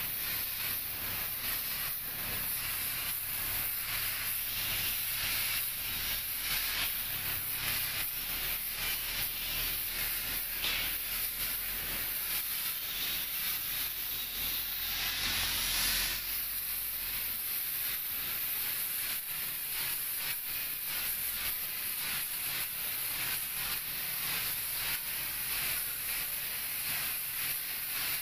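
Compressed-air paint spray gun hissing steadily as it atomises paint onto a metal panel, a little louder about fifteen seconds in.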